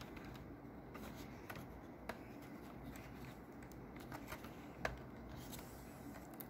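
Faint handling noise: fingers rubbing and fiddling at an opened laptop's fan and heatsink, with a few small sharp clicks of plastic and metal parts.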